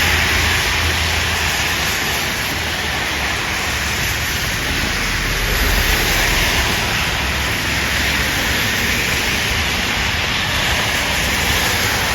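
Wet street traffic: a steady hiss of tyres on a wet road, with a passing vehicle's low engine rumble fading in the first second or so.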